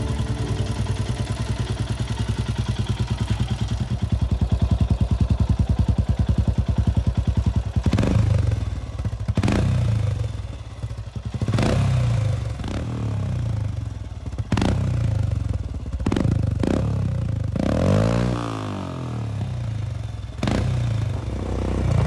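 Royal Enfield Himalayan's single-cylinder engine running through a Red Rooster Vertex slip-on exhaust: idling steadily with an even firing beat, then from about eight seconds in, blipped up and back down several times.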